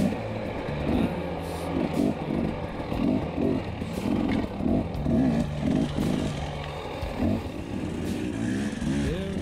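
Dirt bike engine running on a rough trail, its revs rising and falling in quick repeated surges as the throttle is worked, over a steadier low engine drone.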